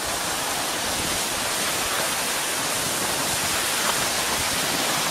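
Steady, even rushing hiss of wind and snow on a moving microphone, as the camera travels downhill on a snowy slope.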